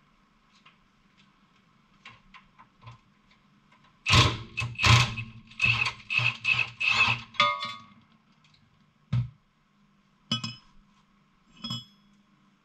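Milwaukee cordless impact wrench hammering in several bursts, starting about four seconds in, as it loosens the top nut of a Jeep's rear sway bar link. Its motor then winds down, and three metal clanks follow near the end.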